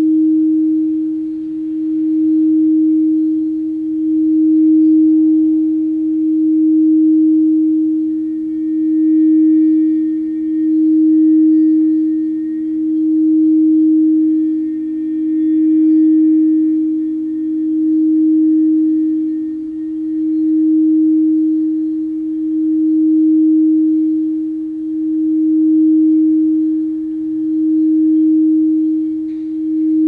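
Frosted quartz crystal singing bowl played by circling a mallet around its rim: one steady, pure, low-pitched tone that swells and fades about every two seconds as the mallet goes round. Fainter lower and higher tones join it for several seconds midway.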